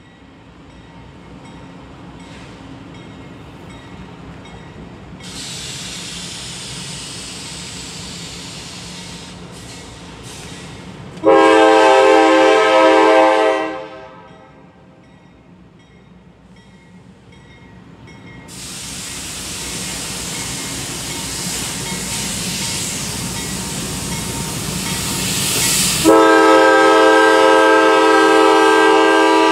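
Horn of a CSX GE AC4400CW freight locomotive sounding for a grade crossing as the train approaches. One long multi-note chord about eleven seconds in lasts some two and a half seconds, and a second long blast starts near the end. Between the blasts the train's running noise grows steadily louder as it nears.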